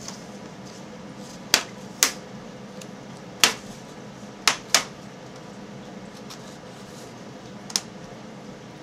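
Plastic snap clips of an HP G71 laptop's screen bezel popping loose as the bezel is pried apart: six sharp snaps at uneven intervals, two of them close together about halfway through.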